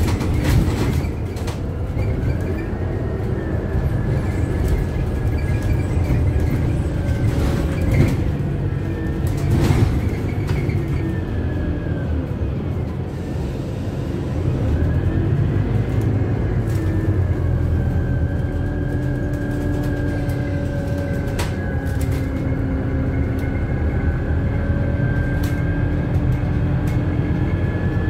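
Cabin sound of a Scania CityWide LF CNG 12 city bus under way: a steady low rumble with a high whine that climbs, holds and sinks back, twice. Sharp clicks and knocks from the cabin fittings, loudest about 8 and 10 seconds in.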